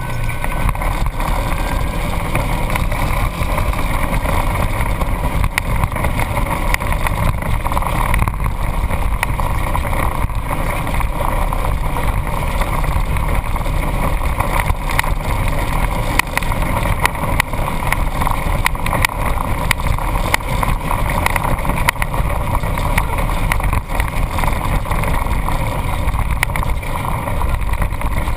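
Off-road vehicle driving a rutted sandy trail, picked up by a camera on its hood: the engine runs steadily under a constant rumble of road and wind noise, with frequent small knocks and rattles from the bumps.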